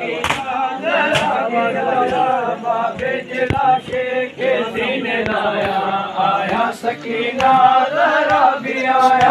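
Group of men chanting a Sindhi noha, a Shia lament for Muharram, together throughout, with a few sharp slaps of matam chest-beating in the first second or so.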